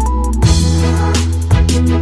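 Background music with a steady drum beat, a held bass line and melodic notes.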